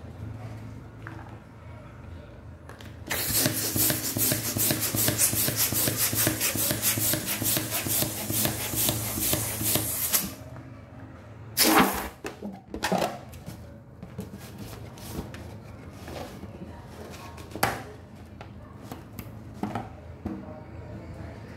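A latex balloon being inflated: a steady rush of air for about seven seconds. A loud, short burst comes shortly after, then latex balloons rustling and rubbing as they are handled.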